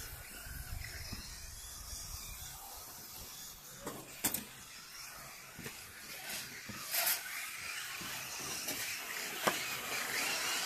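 1:10 scale electric RC rally cars running on a carpet track, their motors and tyres making a steady high hiss, with a few sharp knocks about four, seven and nine and a half seconds in.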